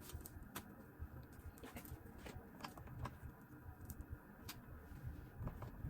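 Faint, irregular clicks and light rustling of handling close to the microphone, over a low steady room rumble.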